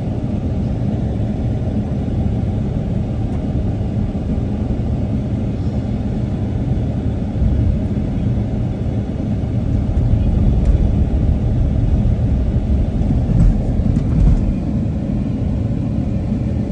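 Steady low road and engine rumble heard from inside a moving car, growing a little louder about ten seconds in, with two brief bumps near the end.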